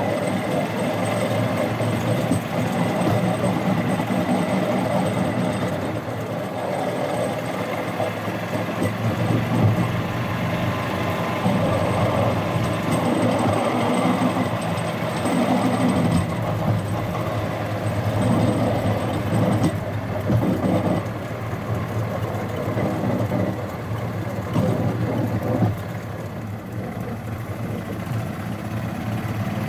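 Rail-mounted golf cart travelling along railway track, its engine running steadily with the rumble of its wheels on the rails.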